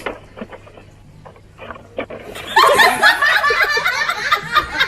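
A few soft clicks over a low hum, then about two and a half seconds in, loud laughter breaks out and keeps going.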